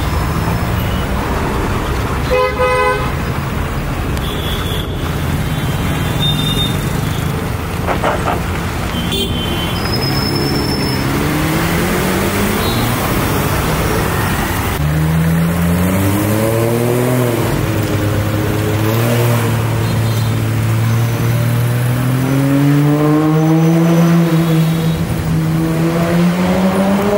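Lamborghini Aventador S's V12 engine running at low revs, rising and falling in pitch several times as the car pulls away and shifts, over street traffic noise. A short car horn toot about two and a half seconds in.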